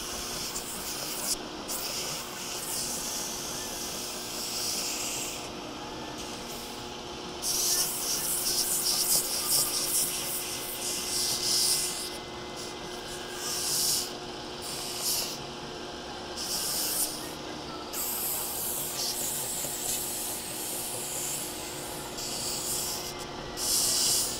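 Belt grinder running on a 120-grit belt while a knife handle scale is pressed against it in repeated passes: bursts of hissing abrasive grinding, from brief touches to several seconds long, over the grinder's steady motor hum.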